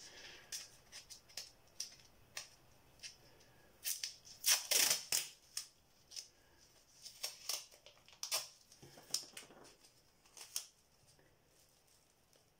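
Plastic cling wrap crinkling and crackling irregularly as it is handled and pressed down, loudest about four to five seconds in.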